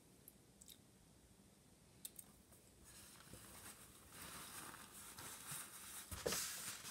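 Faint eating and handling noises from a person eating Skittles. A few small clicks come early, then a soft, uneven rustling builds from about three seconds in, with a low knock near the end.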